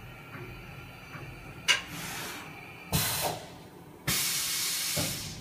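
A sharp click, then two blasts of compressed air hissing from a vertical machining center, the second lasting about a second and ending in a clunk.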